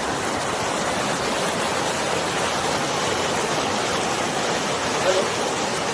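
Fast-flowing river water rushing steadily and loudly, a strong, powerful flow.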